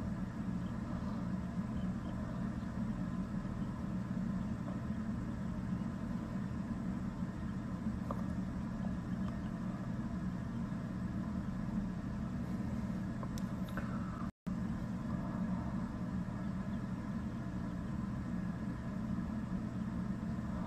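Steady low hum of a running ceiling fan, cutting out for an instant about two thirds of the way through.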